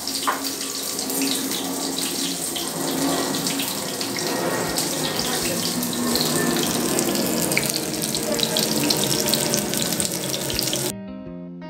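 Batter-coated topshe (mango fish) frying in hot oil in a pan, a steady sizzle. About eleven seconds in it cuts off suddenly and acoustic guitar music begins.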